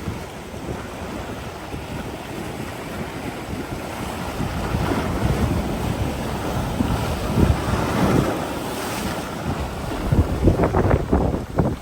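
Strong gusty wind buffeting the microphone in a low rumble, building about halfway through, with the hardest gusts near the end.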